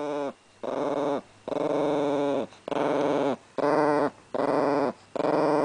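A chihuahua growling in a rapid run of short, tuneful growls, about seven of them, each under a second long and sliding down in pitch at its end, with brief breaths between. It is a guarding growl over her bone.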